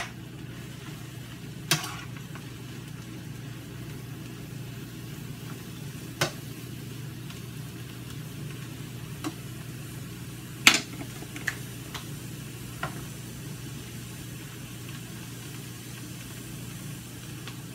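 Chopped lion's mane mushroom sautéing in a skillet with a steady sizzle, while a spatula stirs it and knocks sharply against the pan about half a dozen times, loudest about two-thirds of the way through.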